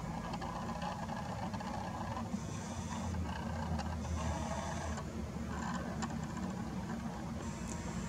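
Steady low rumble of background noise that swells slightly in the middle, with a faint high whir for about two seconds.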